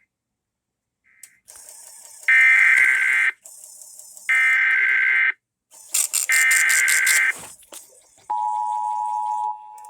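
Emergency Alert System (SAME) header data: three screechy digital bursts of about a second each, then about 8 seconds in the steady two-tone EAS attention signal starts and holds. A raspy high buzz rides along with the bursts.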